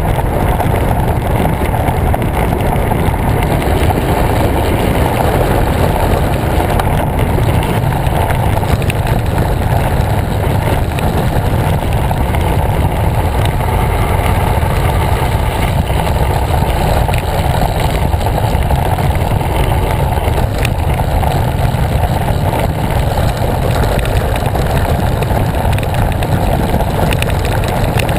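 Steady wind buffeting on the microphone of a bicycle-mounted camera while riding at speed, mixed with the rumble of the tyres on the asphalt road.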